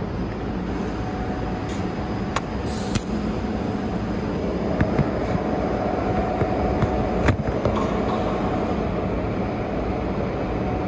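TIG welding arc running on a 2-inch stainless pipe-to-flange joint during the root pass, a steady hiss and buzz at low current, with a faint steady whine that strengthens about halfway and a few sharp clicks.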